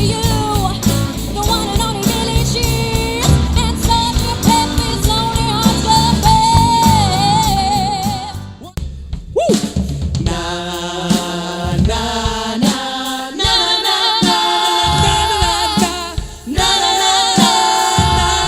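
Band music with singing over a drum kit. It drops out briefly about halfway, then music with singing starts again, which sounds like a cut to another song.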